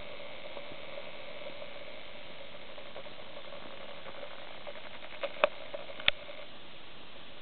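Camcorder zoom motor whining steadily under a faint hiss, stopping about six and a half seconds in, with a few sharp handling clicks just before it stops.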